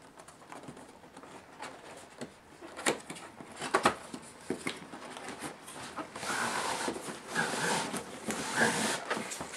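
A large cardboard train-set box being handled and opened: a few taps and knocks against the cardboard, then from about six seconds a steadier rubbing hiss of cardboard sliding as the lid is worked off.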